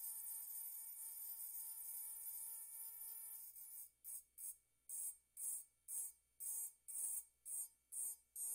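Electric pen-style rotary engraving tool with a fine bit running against a wine glass: a thin, high-pitched whine with a hiss. About four seconds in it breaks into short, regular pulses, about two a second.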